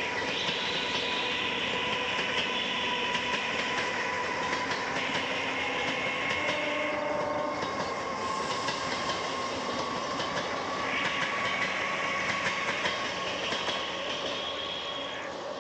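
Indian Railways EMU suburban local trains running on the tracks. The wheels clatter over rail joints under a steady whine, and the sound fades slightly near the end.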